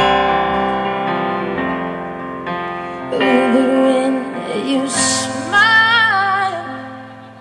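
A woman singing over sustained chords on a Kurzweil SP2X digital stage piano. The chords ring alone at first, and her voice comes in about three seconds in, holding a note with vibrato.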